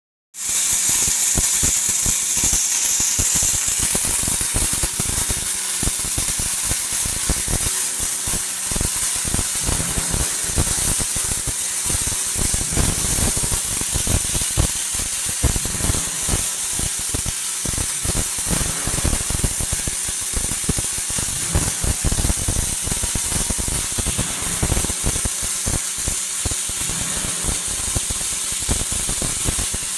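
Pulsed MIG/MAG welding arc from a Lorch S5 power source in SpeedPulse XT mode: a steady, dense crackle with a high hiss over it.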